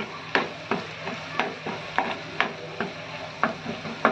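A spoon stirring and scraping crushed onion frying in hot oil with mustard seeds in a pan, about three strokes a second over a steady sizzle.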